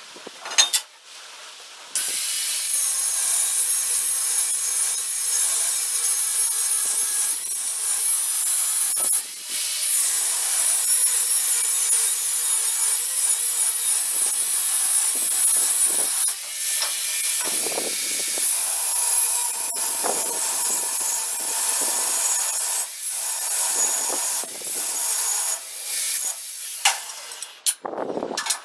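Arc welding on steel: a long, steady crackling hiss from the welding arc that starts abruptly, breaks off briefly a couple of times and resumes at once, and stops shortly before the end.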